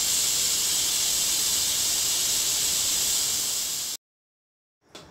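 Pressure cooker hissing steadily as steam escapes through its valve: the heat has just been turned off and the pressure is letting down. The hiss cuts off abruptly about four seconds in, followed by a moment of silence and faint room sound.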